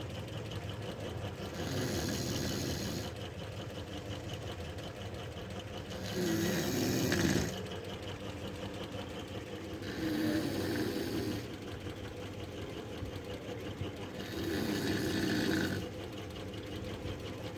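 A woman snoring: four snores, each about a second and a half long, coming roughly every four seconds.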